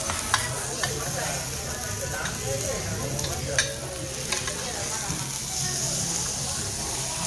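Steakhouse dining-room sound: a steady sizzling hiss of meat cooking on hot iron, with a few sharp clinks of cutlery on dishes.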